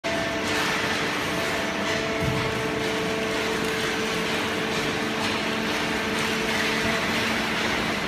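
Automatic horizontal hydraulic waste paper baler and its feed conveyor running: a steady machine hum with several held tones under a constant rushing noise.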